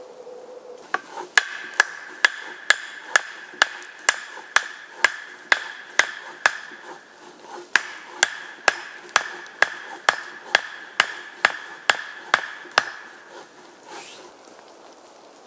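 Wooden stake being driven into the ground beside a campfire with a steady run of hammer blows, about two a second, some two dozen in all, stopping a couple of seconds before the end. A ringing note carries on under the blows.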